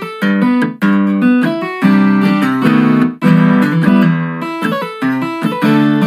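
Fingerstyle acoustic guitar playing a melody over alternating bass notes and chords, with muted percussive slaps on the strings between them.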